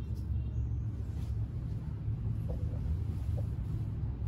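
Low steady background rumble of room noise, with no distinct event standing out.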